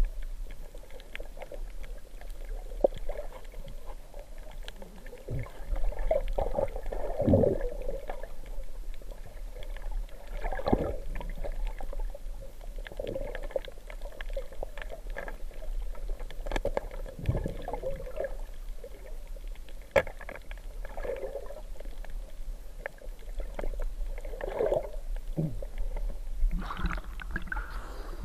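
Muffled water sloshing and gurgling heard through an underwater camera's housing during a night dive, with a couple of sharp clicks.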